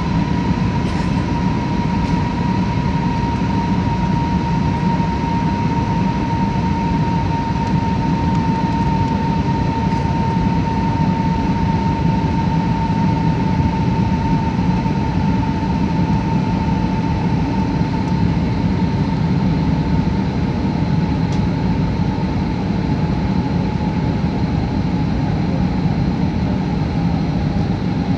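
Steady engine and airflow noise inside the cabin of an Airbus A320-family jet airliner on descent, with a high engine whine that slowly drifts lower in pitch.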